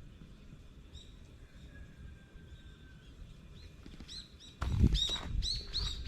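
Birds calling: a run of short, repeated chirping calls, faint at first, then louder and coming in quick succession from about two-thirds of the way in.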